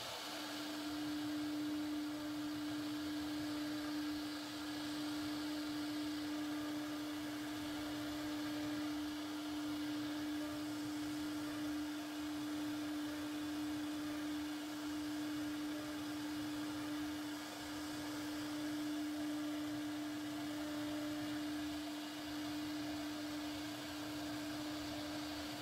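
CNC router spindle running at a constant speed, a steady unwavering whine over a hiss, as its bit carves a relief pattern into a wooden panel.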